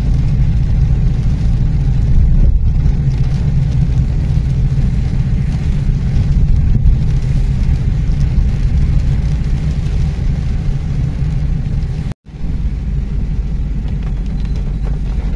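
Car interior noise in rain: a steady low engine and road rumble with rain on the windscreen. The sound drops out for a moment about twelve seconds in.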